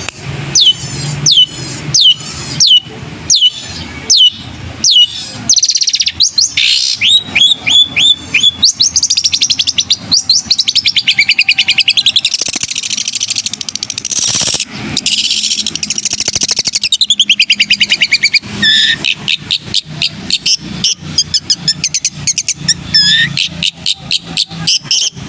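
Caged long-tailed shrike (cendet) singing a mimicking song. It opens with about eight sharp down-slurred whistles, one every half second or so, then speeds into a dense, rapid chattering trill lasting about ten seconds, and ends on a run of varied mixed notes.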